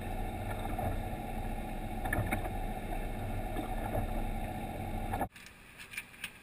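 Steady low rumble of a fishing boat on the water, with a few light knocks and clicks from the deck; it cuts off abruptly about five seconds in, leaving faint rustling and clicks.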